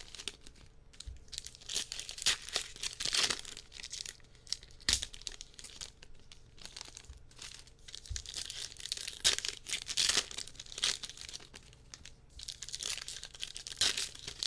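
Trading-card packaging being torn open and crinkled, in irregular bursts of rustling with a few soft knocks.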